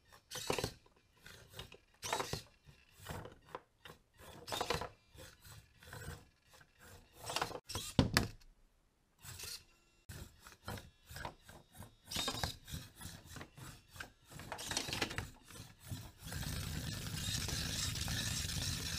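Antweight combat robot driving in short bursts on a wooden board, its small drive motors whirring and its plastic shell and wheels scraping and knocking against the wood. A sharp knock comes about eight seconds in, and near the end the noise turns steady and continuous as the robot spins and tumbles.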